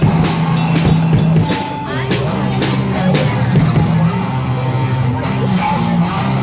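A student rock band playing live: a bass line of held low notes under drum kit hits with cymbal strikes, with guitar.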